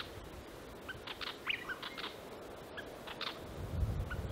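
Willy wagtail calling: a string of short, high chirps over a few seconds. Low wind rumble on the microphone comes in near the end.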